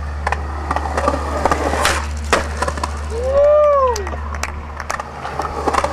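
Skateboard rolling on rough concrete, with sharp clacks of the board and wheels and a steady low rumble underneath. About three and a half seconds in, one rising-and-falling call rises over it.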